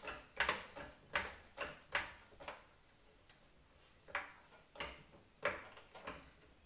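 Hydraulic floor jack being pumped by its long handle to lift a car, a faint short click with each stroke: about two strokes a second at first, a pause of about a second and a half, then several slower strokes.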